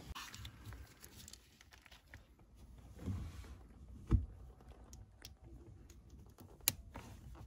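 Quiet handling sounds of gloved hands reconnecting the fine water-sensor wires under a diesel fuel filter: light rustling with a few soft knocks, a thud about four seconds in and a sharp click near the end.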